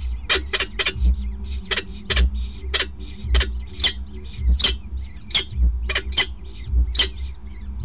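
Downy peregrine falcon chicks giving short, high begging peeps, about two a second and often in pairs, while being fed by an adult. A low rumble under the peeps swells about once a second.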